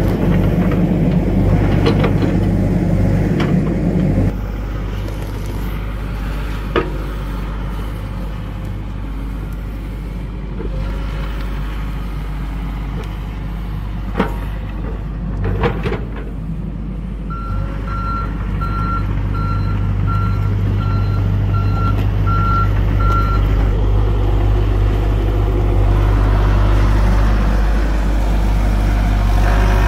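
John Deere compact excavator's diesel engine running steadily, louder under hydraulic load for the first few seconds and again near the end, with a few sharp knocks of the steel bucket. From a little past halfway its travel alarm beeps about ten times over six seconds.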